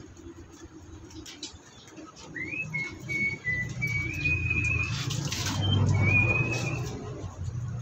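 Water being poured and splashing on a wet concrete floor around a dog cage, loudest around the middle. A thin high whining tone comes and goes over it a few times, rising at first and then held in short steps.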